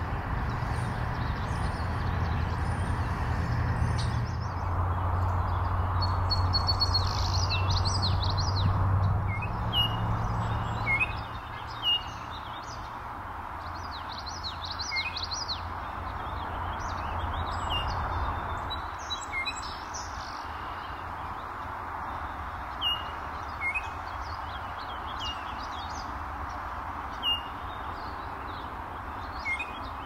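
Small songbirds calling: short falling chirps repeated every second or two, with bursts of twittering song, over a steady background hiss and a low rumble that drops away about twelve seconds in.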